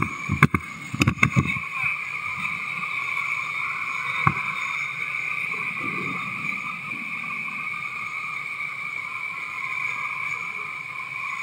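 Whitewater rapids rushing steadily around an inflatable raft, with a cluster of sharp knocks and thumps in the first two seconds and a single click about four seconds in.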